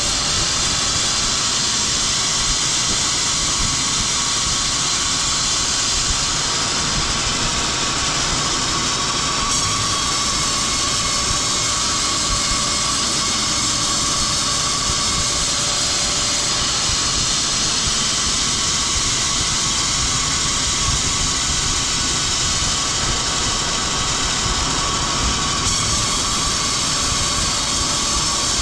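Woodworking machinery running steadily: a loud, even mechanical noise with a constant high whine, with small shifts at edits about ten, seventeen and twenty-six seconds in.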